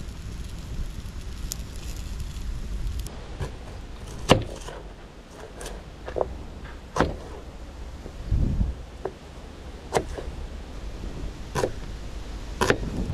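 A series of sharp knocks or cracks at irregular intervals, about five over ten seconds, the first loudest, after a few seconds of low rumble.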